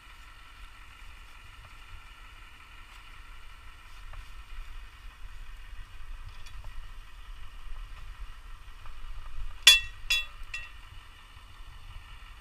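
Two sharp metallic clinks with a brief ring, about ten seconds in, from the crane hook and rigging hardware knocking as a lifting sling is handled at the hook. Under them runs a steady faint mechanical hum with a low rumble.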